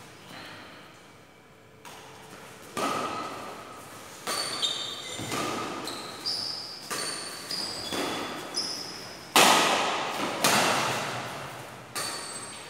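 Badminton rally: racquets striking a shuttlecock back and forth, sharp hits about every half second to a second, each echoing in a large hall, the loudest a little past the middle. Short high squeaks of court shoes on the floor come between the hits.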